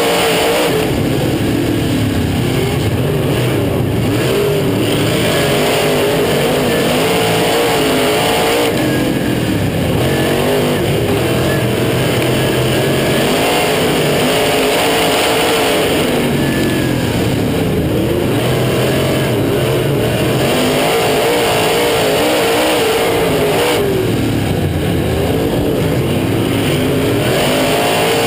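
Dirt modified race car's V8 engine, heard from inside the cockpit at racing speed. The engine note rises under throttle and eases off in a repeating cycle about every seven or eight seconds as the car laps the track.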